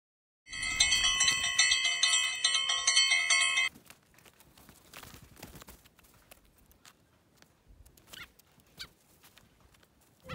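A bright bell-like chime rings loudly, rapidly re-struck, for about three seconds and then stops. Faint background follows, with two short chirps near the end.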